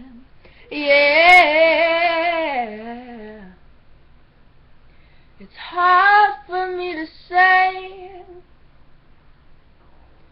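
Unaccompanied solo male voice singing high held notes with vibrato. One long note begins about a second in and glides down at its end, then three shorter sung phrases follow in the second half.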